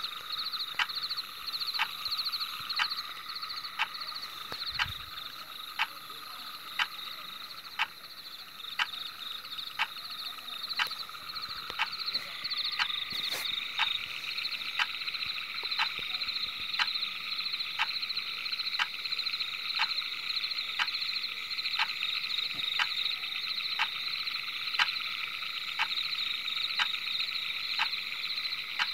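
Frogs calling: a steady chorus of fast pulsing trills, with a sharp click repeating a little under twice a second. The chorus grows fuller about halfway through.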